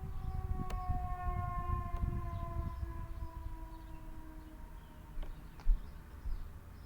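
Federal Signal 2001-130 outdoor warning siren winding down, its tones sliding slowly lower in pitch and fading as the rotor coasts to a stop. A low rumble runs underneath, with a single loud thump near the end.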